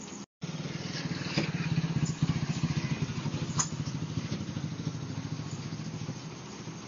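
Small scooter engine running as the scooter rides off up the lane. It is loudest about two seconds in and fades as it moves away.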